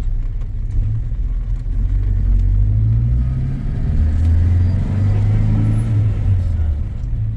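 Steady low rumble of a road vehicle running, a little louder in the middle.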